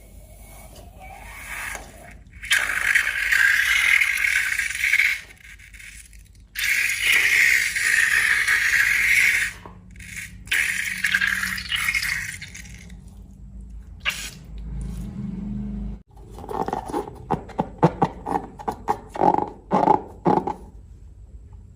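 Slime-making sounds: two long hissing stretches of a few seconds each, then a quick run of sticky squelches and clicks as the slime is worked by hand or stirred.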